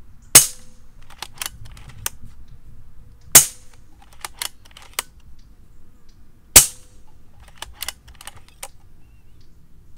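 Stoeger XM1 Bullpup PCP air rifle with a shrouded barrel fired three times, about three seconds apart, each a sharp crack. Between the shots come a few lighter clicks as the side lever is cycled from the shoulder to load the next pellet from the rotary magazine.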